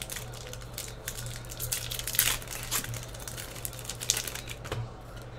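Foil-lined trading-card pack wrapper crinkling and tearing as it is pulled open by hand, in irregular rustles, over a steady low hum.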